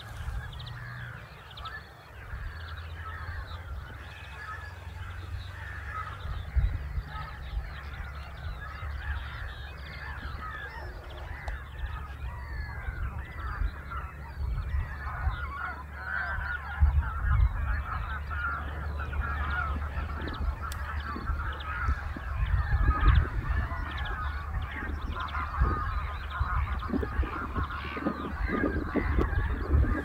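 A flock of wild geese calling in flight, many overlapping calls at once, growing denser and louder in the second half. A low rumble runs underneath and gusts harder towards the end.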